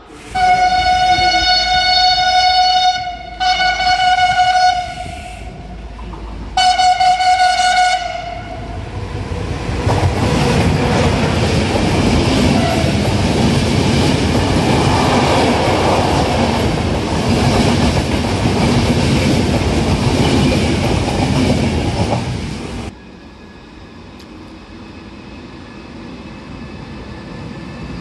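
Horn of an approaching Frecciarossa ETR500 high-speed train sounding three long blasts, each one steady note. Then the rumble and wheel clatter of locomotive-hauled InterCity Notte coaches passing close by. About 23 s in this cuts to a much quieter, steady sound of a train drawing in.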